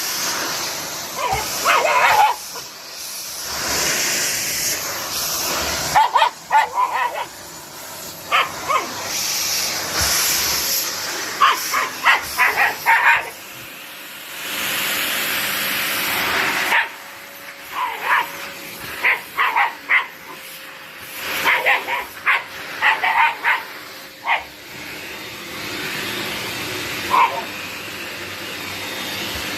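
Shiba Inu barking in quick clusters of short barks at a running vacuum cleaner. The vacuum's hissing rush swells and drops between the barks.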